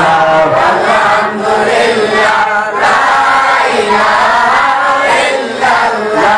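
A man chanting a Bengali devotional song into a microphone in a drawn-out, melodic voice, breaking briefly for breath about a second in and again near the end.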